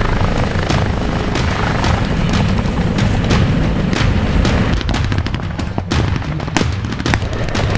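Military helicopter flying low with its rotor noise running steadily and a thin high whine over the first two-thirds. Scattered gunshots, blank rifle fire, crack through it and come thicker in the second half.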